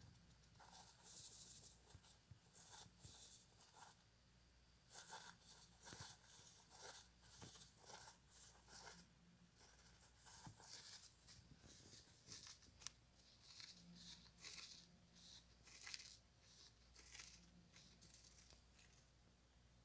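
Faint, irregular rustling and crackling of wood-shaving bedding as a hamster shifts and burrows in it.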